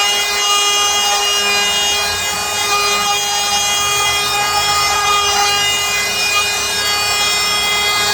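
Electric router mounted in a router table, running with a steady high whine while its bit cuts into wood.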